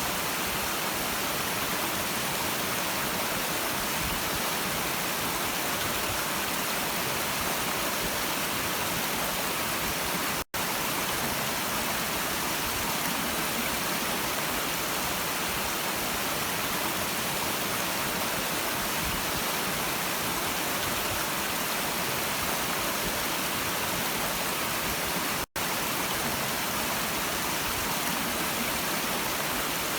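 A stream's water running steadily, an even hiss with most of its weight in the upper range. It cuts out for an instant twice.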